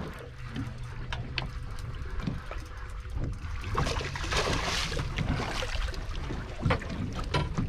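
A hooked gag grouper splashing at the surface beside a boat about four seconds in, over a steady low rumble of wind and water, with scattered short clicks.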